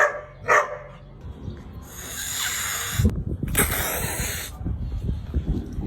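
Cat hissing in two breathy bursts, each about a second long.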